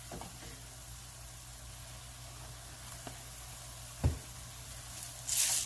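Ground meat sizzling faintly in a skillet, a steady low hiss, with one dull thump about four seconds in and a brief hiss near the end.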